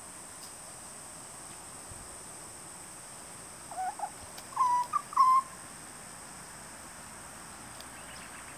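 Juvenile grey butcherbirds calling: a short run of four or five brief, low fluted whistles over about a second and a half, midway through.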